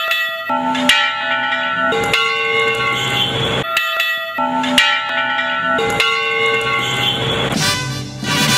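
Church bells chiming a short tune of several strokes at different pitches, played twice through. Other music comes in near the end.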